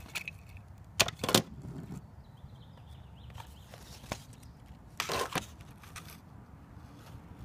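Toys being handled on a wooden table: two sharp knocks about a second in as a die-cast toy car is set down, then a brief crackle of a plastic blister pack being picked up near the five-second mark.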